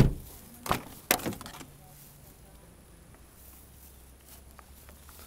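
A car's rear door is unlatched and pulled open: one sharp loud click, then two smaller knocks within about a second and a half as the door swings out.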